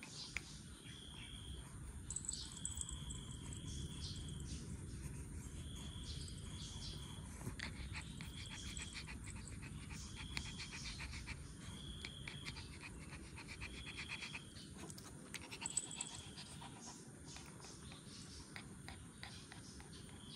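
Puppy suckling from its mother dog: faint wet smacking and clicking, with a short, high chirp repeating about every second and a half behind it.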